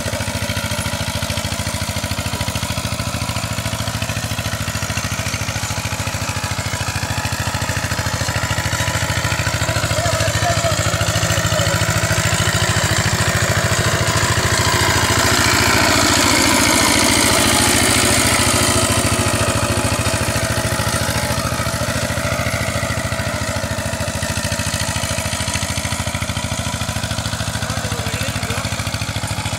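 Two-wheel power tiller's single-cylinder diesel engine running steadily under load as its tines till the soil, growing louder for several seconds in the middle as it comes close, then easing back.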